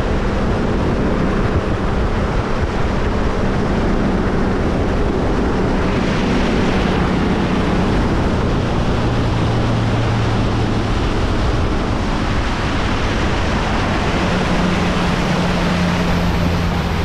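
Fishing boat's motor running steadily underway, its low drone shifting slightly in pitch now and then, under a constant rush of wind and water spray along the hull.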